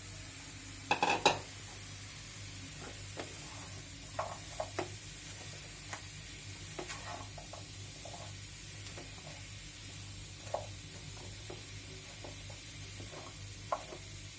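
A spatula stirring and scraping chopped red pumpkin and fried onions in a frying pan over a steady sizzle. A loud burst of clatter comes about a second in, followed by scattered scrapes and taps of the spatula against the pan.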